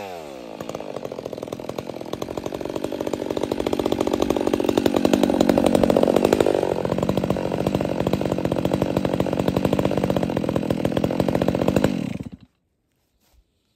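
Stihl 362 C-M two-stroke chainsaw with a Bark Box muffler, its revs just dropped, idling with an even firing pulse for about twelve seconds, then switched off near the end.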